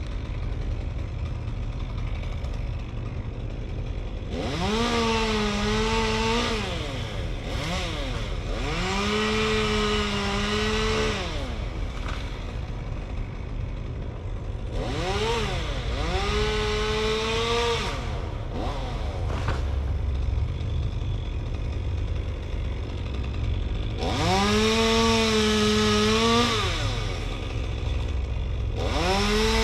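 Chainsaw revving to full throttle in five bursts of two to three seconds each, dropping back toward idle between them; the last burst begins near the end. A steady low engine rumble runs underneath.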